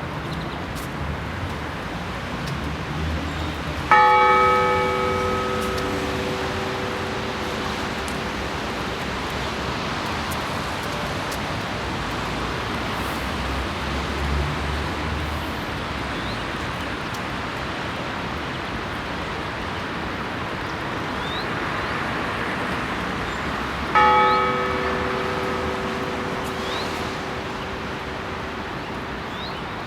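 A single large church bell struck twice, about twenty seconds apart, each stroke ringing out with a strong hum and slowly fading: the slow, spaced toll of the Lenten blagovest rung in Holy Week.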